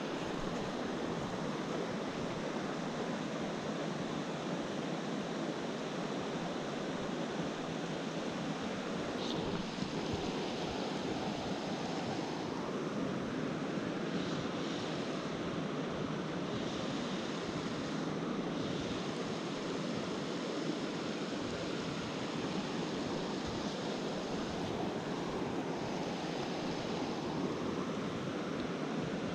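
A small freestone mountain stream running high: a steady rush of moving water.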